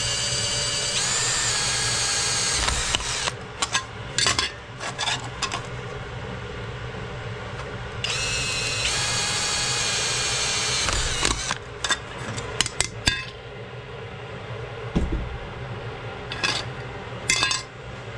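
Handheld power tool running in two spells of about three seconds each, its motor whine dipping in pitch as it takes load. Scattered taps and knocks fall between the spells.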